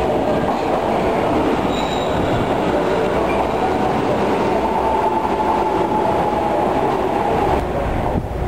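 Osaka subway train pulling into an underground station: a steady, loud rumble of steel wheels on rail with a whining tone running through it. The sound cuts off abruptly near the end.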